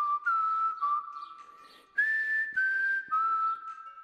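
Someone whistling a slow tune: clear held notes stepping from one pitch to the next. One phrase fades out about a second and a half in, and a new one starts on a higher note about two seconds in and steps down.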